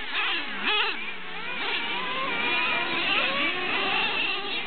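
Several radio-controlled race trucks' motors whining, their pitch rising and falling as they speed up and slow down. One sweeps sharply up and back down just under a second in.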